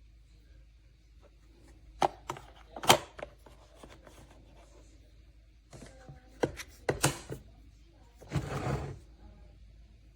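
Several sharp knocks and clacks of hard objects being handled, in two clusters, then a short burst of rushing noise lasting under a second near the end.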